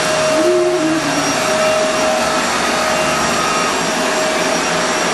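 Kenmore Progressive upright vacuum cleaner running steadily: an even motor rush with a constant whine over it.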